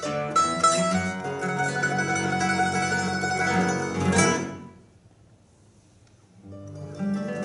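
A trio of classical guitar, mandolin and double bass playing, breaking off on a loud accented chord about four seconds in. After about a second and a half of near silence the three start playing again.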